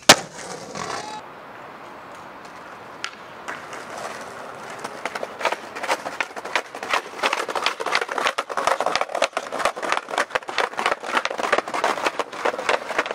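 A sharp clack right at the start, then skateboard wheels rolling over brick paving, a rapid, uneven clatter of clicks that builds up from about five seconds in.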